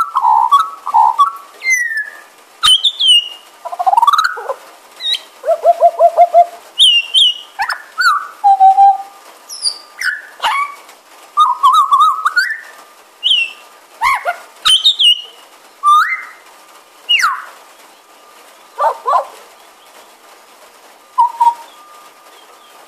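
Australian magpie singing close up: a long, varied warble of fluting notes, pitch slides and short rattling trills, broken by brief pauses.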